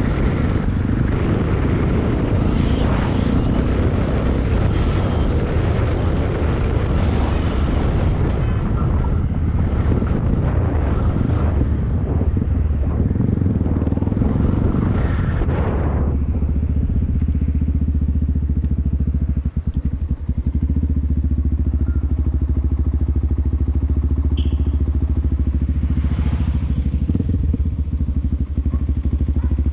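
Yamaha XT225 single-cylinder four-stroke motorcycle engine running on an off-road ride, rough and noisy with rattles for the first half, then running more evenly from about sixteen seconds in.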